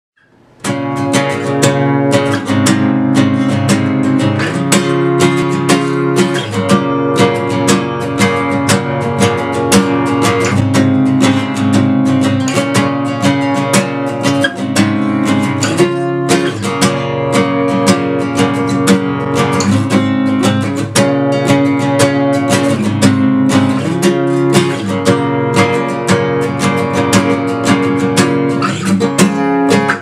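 Acoustic guitar music: steady, rhythmic strummed chords, starting about a second in.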